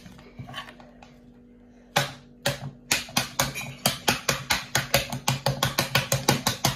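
Fist pounding the top of a frozen Capri Sun foil pouch held upside down in a drinking glass, to force the frozen drink out. It starts about two seconds in as a rapid, regular run of sharp knocks, about four a second.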